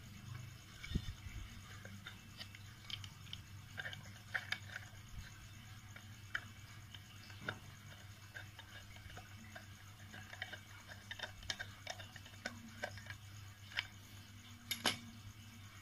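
Faint, scattered clicks and scrapes of a hand screwdriver turning screws into a plywood board, over a low steady hum. A dull thump comes about a second in and a sharper clack near the end.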